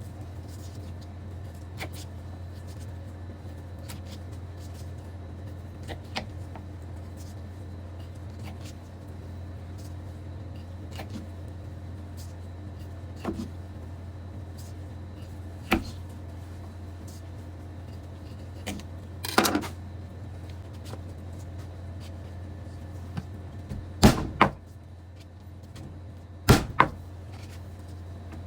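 A steady low hum, with a few sharp knocks and clatters scattered through it, the loudest ones near the end.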